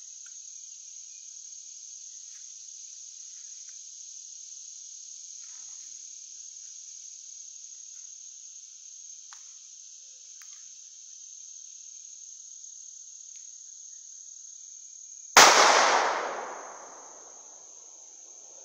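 A single 12-gauge bolt-action shotgun shot about fifteen seconds in, its report echoing away through the woods over a second or so, over a steady high drone of insects.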